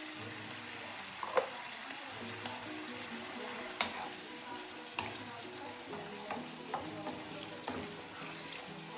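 Chayote and pork belly sizzling in a frying pan as a wooden spatula stirs them, with sharp knocks of the spatula against the pan every second or so, the loudest a little over a second in and near four seconds in.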